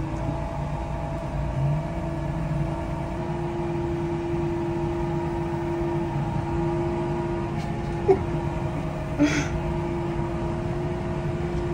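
Tractor engine running steadily under load, with a steady whine over a low rumble, as its front-end loader pushes a stuck truck out of mud. A brief click about eight seconds in and a short hiss about a second later.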